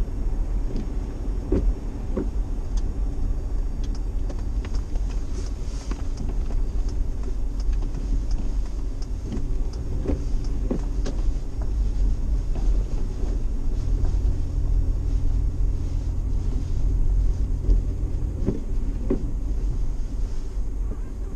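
Vehicle driving slowly on snow, heard from inside the cabin: a steady low rumble from the engine and tyres with scattered light knocks and creaks. The low engine note rises for a few seconds about two-thirds of the way in, then drops back.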